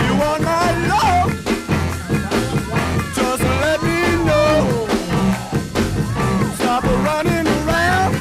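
Rock song with a singing voice, electric guitar and a steady drum beat.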